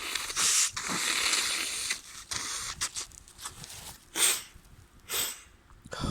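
A person with a stuffy head cold blowing their nose, a hiss of about a second, then sniffing twice near the end, with a few small clicks and rustles between.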